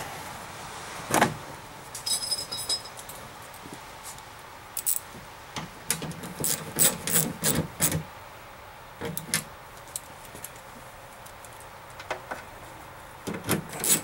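Scattered metallic clicks and clinks of a ratchet and socket tightening the 8 mm nuts that hold an outside door handle inside a pickup door, with a sharp knock about a second in and a run of quick clicks in the middle.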